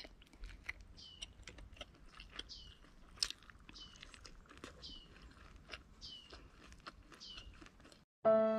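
A child quietly chewing and biting into a soft rice-paper roll of steamed fish and herbs, with many small mouth clicks. Over it come short high chirps that fall in pitch, repeated about once a second. Near the end the sound cuts off and violin music begins.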